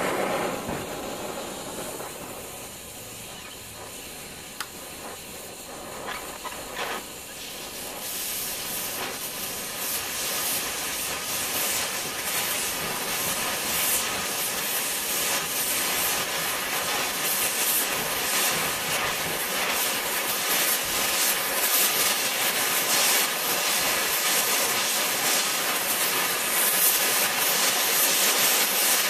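MagneGas2 torch flame hissing steadily against a piece of tungsten, growing louder and harsher from about eight seconds in and building to the end.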